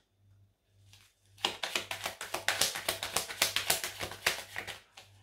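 Oracle cards being shuffled by hand: a rapid, dense run of dry clicking and flicking that starts about a second and a half in and stops shortly before the end.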